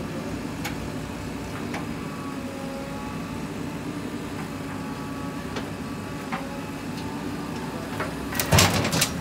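JCB 3DX backhoe loader's diesel engine running steadily under working load, with a few sharp knocks from the digging. Near the end the bucket dumps its load of soil and stones into a steel tractor trolley, a loud rush of falling dirt lasting about a second.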